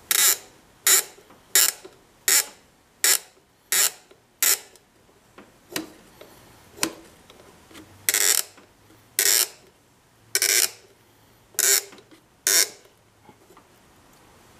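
Hand work on a fuel line's clear plastic tubing and clamp: a run of sharp clicks or squeaks, about one every two-thirds of a second for the first few seconds, then five more at uneven spacing after a pause.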